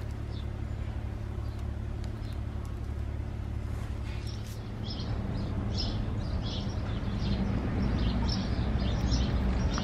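Outdoor ambience: a steady low vehicle rumble that grows louder in the second half, with a small bird chirping repeatedly from about four seconds in.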